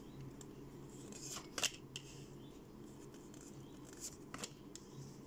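A deck of glossy holographic tarot cards being shuffled and handled, giving a few soft card flicks and snaps about a second and a half in and again about four seconds in.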